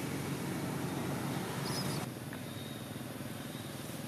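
Steady outdoor background noise with a low rumble. A brief faint high chirp comes just before an abrupt change in the background about two seconds in.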